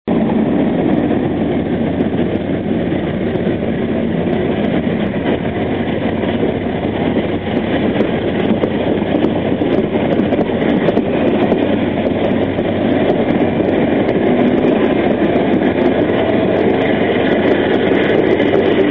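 Amtrak passenger train pulling out on departure: the cars' steel wheels rolling on the rails close by, with the diesel locomotives working under power up ahead. A steady rumble that grows a little louder in the second half.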